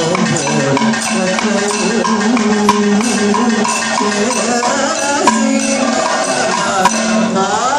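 Live Kathakali music: a singer's voice gliding over a steady drone, with drum and percussion strikes accompanying the dance.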